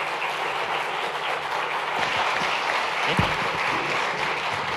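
Audience applauding: steady, dense clapping, with a low thump about three seconds in.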